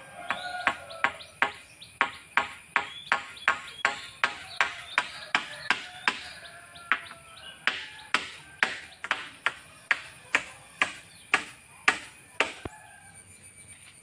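A hammer driving nails into a wooden-pole roof frame: a steady run of sharp, slightly ringing blows, about two to three a second, that stops shortly before the end.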